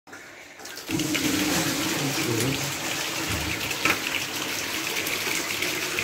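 Dirty water gushing from a clogged central-heating panel radiator into a plastic bucket, a steady splashing pour that starts about a second in. This is black sludge being flushed out of the blocked radiator.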